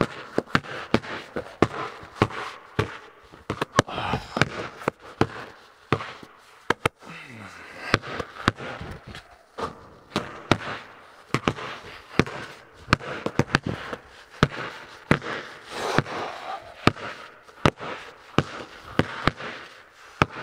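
Basketballs bouncing on a concrete floor and banging off the backboard and rim: many sharp, irregular thuds, each echoing in a large metal-walled barn.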